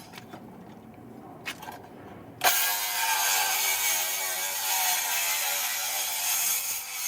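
A few light clicks, then about two and a half seconds in a circular saw starts and cuts steadily through a wooden board, its pitch wavering slightly as the blade works under load.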